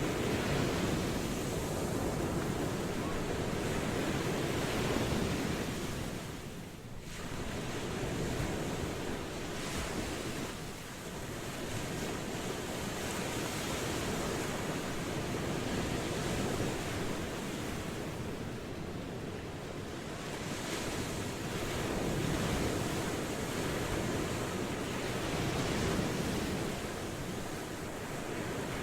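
Ocean waves washing onto a shore, a continuous surf noise that swells and eases every few seconds, with a short lull about a quarter of the way in.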